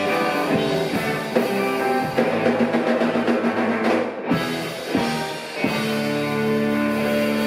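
Live rock band of two electric guitars, bass, keyboards and drum kit playing, with drum hits breaking through, a brief drop a little past four seconds, then a chord held steady from about six seconds in.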